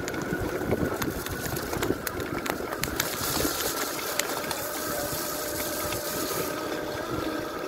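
Electric motor of a home-converted mountain e-bike whining steadily under way, with tyres rolling over a wet gravel track and small stones clicking. A rushing hiss of wind on the microphone swells through the middle and eases off near the end.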